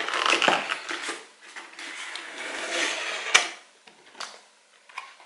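Cardboard shipping box being opened by hand: flaps rustling and scraping, with one sharp click about three and a half seconds in, then a few faint taps as the lid is held open.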